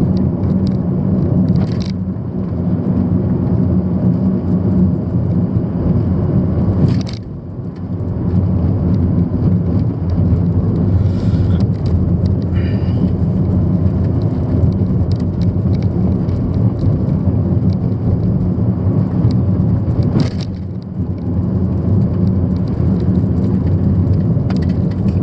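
Steady engine and tyre noise heard inside a moving car's cabin: a low, even hum that dips briefly twice, about seven and twenty seconds in.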